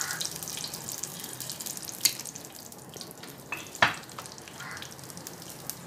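Hot oil sizzling in a clay pot as fenugreek and cumin seeds fry, a steady hiss with a couple of sharp pops, about two seconds in and again near four seconds.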